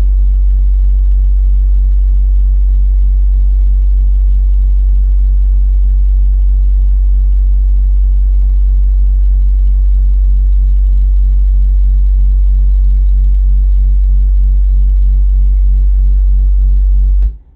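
A 10-inch car subwoofer plays a loud, steady bass test tone of about 48 Hz for an SPL meter reading. A faint buzz pulses about three times a second above it, and the tone cuts off abruptly near the end.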